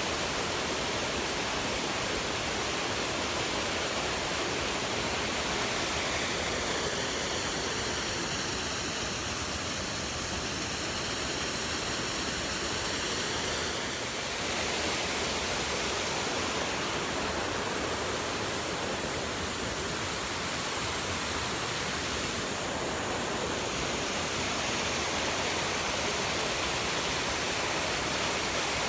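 Steady rushing roar of a waterfall, an even wash of falling water.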